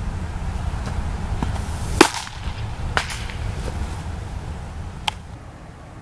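A baseball pitch smacking into the catcher's leather mitt with a sharp pop about two seconds in. Two fainter smacks follow, about a second and three seconds later, over a steady low rumble of wind on the microphone.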